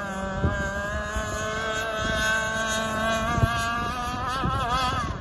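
Enforcer Stingray RC hydroplane running flat out across the water, its motor giving a steady high whine that climbs a little and then drops near the end as the throttle comes off. Wind buffets the microphone with low rumble and a few thumps.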